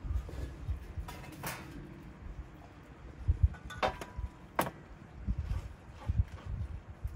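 Whole raw chickens being handled and laid on a large flat metal pan, with a few sharp knocks and clinks against the metal over a low rumble of wind on the microphone.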